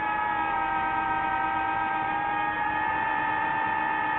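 DJI FPV drone's motors and propellers whining steadily in flight, the pitch dipping slightly about half a second in and rising again near the end as the throttle changes.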